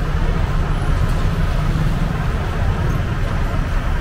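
Steady city street traffic: car engines and tyres going past, with a deep, even rumble.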